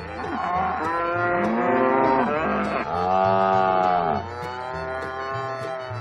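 Cow mooing: three long calls one after another, the last one quieter, over background music.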